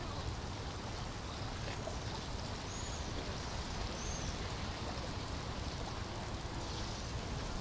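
Steady rushing background noise with a low rumble, and two short high chirps about three and four seconds in.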